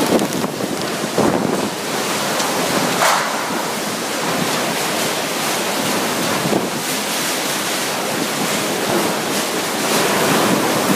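Typhoon-force wind and wind-driven rain in a steady rush, with stronger gusts surging several times and buffeting the microphone.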